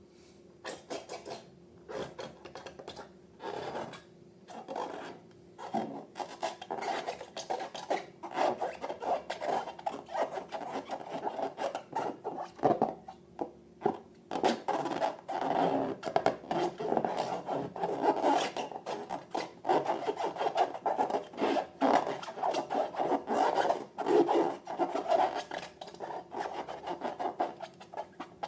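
Slime being mixed and worked: an irregular run of sticky crackling clicks and rubbing, sparse at first and growing dense and busy after about six seconds.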